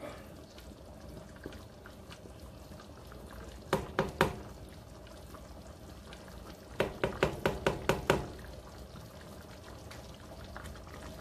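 Pan of creamy chicken a la king sauce simmering on a gas stove, a steady low bubbling. About four seconds in come three sharp clicks, and around seven to eight seconds in a quick run of about eight more.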